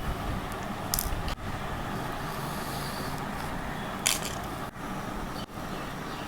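Small screws being worked out of the back of a camera lens with a screwdriver: light scraping, and two brief sharp clicks about one second and about four seconds in, over a steady background hiss.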